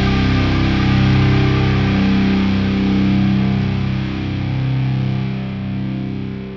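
Rock music with distorted electric guitar holding sustained chords, gradually fading out.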